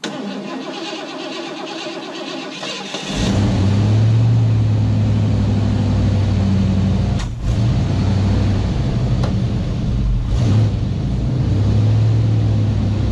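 The 1985 Mustang LX's swapped-in 5.0 V8 is cranked by the starter, with a jump pack at the battery, for about three seconds, then catches and runs with a steady deep exhaust note.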